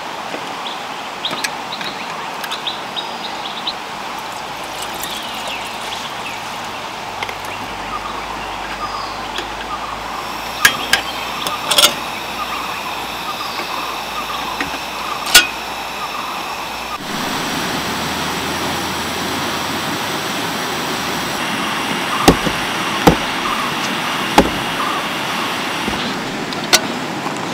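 Steady rushing of a river, with a few sharp knocks and clicks now and then.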